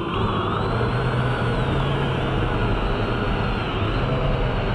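Underwater drone's electric thruster motors running, a whine that slowly rises and falls in pitch over a low steady hum as the drone is steered under the ice.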